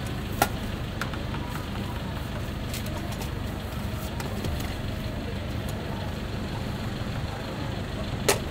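Steady low street-side rumble, with a few sharp clicks: one about half a second in, one at about a second, and a louder one near the end.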